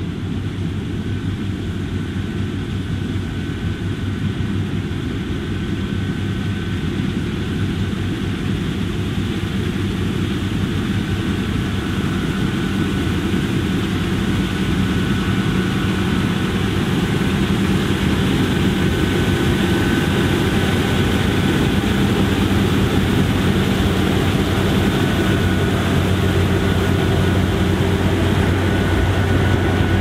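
John Deere X9 1100 combine harvester working at full load in canola: a steady diesel-engine drone mixed with the rush of its threshing machinery, growing gradually louder.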